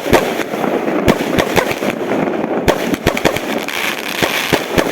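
Fireworks going off: many sharp bangs in quick, irregular succession over continuous crackling.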